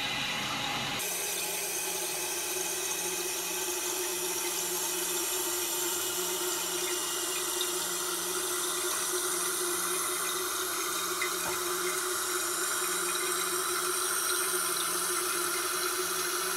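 Toilet tank fill valve refilling the tank: a steady rush and hiss of water with a steady hum under it, cutting off suddenly near the end as the float shuts the valve on a full tank.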